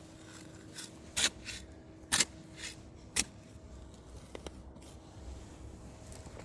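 Digging in garden soil: three short, sharp scraping strokes about a second apart, with a few fainter scuffs between them.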